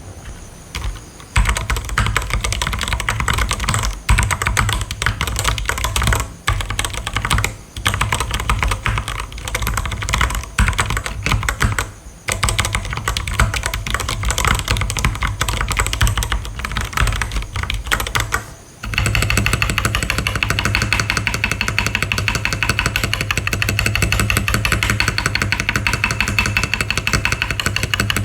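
Continuous fast typing on a Vortex VX8 75% mechanical keyboard with brown tactile switches: dense key clatter with brief pauses every few seconds, then a steadier, denser run of keystrokes from about two-thirds of the way in.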